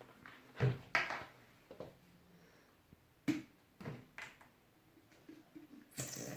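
Scattered short knocks and handling noises of a plastic glue bottle being handled and squeezed while glue is poured, with a longer, louder noisy sound near the end.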